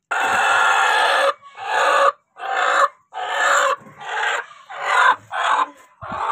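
Aseel broody hen squawking in distress as she is picked up and held: one long squawk, then a string of shorter squawks about every half second.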